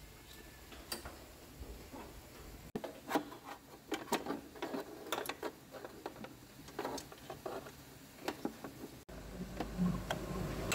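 Irregular light clicks, taps and knocks of hand tools and metal parts being handled during repair work. A low steady hum comes in near the end.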